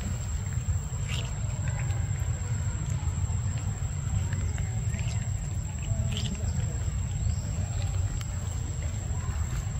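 Steady low rumble, like wind buffeting the microphone, with a few faint short clicks and smacks as a macaque bites and chews ripe mango.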